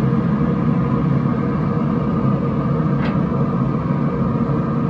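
Steady low rumble, with a single short clunk about three seconds in.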